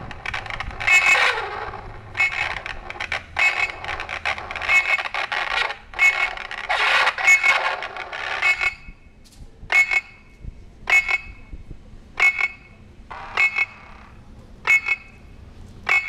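Electronic car-alarm tones played through speakers on two cars: dense overlapping chirps and warbles with a falling sweep near the start. About nine seconds in this thins to a single short chirp repeating about every 1.2 seconds.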